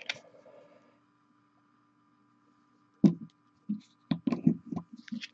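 Light clicks and knocks from a hobby paint dropper bottle being handled, coming in a quick irregular run from a little over halfway through, over a faint steady hum.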